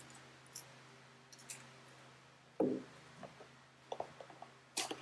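Faint handling sounds of unpacking a cardboard box and its contents: scattered small clicks and rustles, with a short louder knock about two and a half seconds in, over a low steady hum.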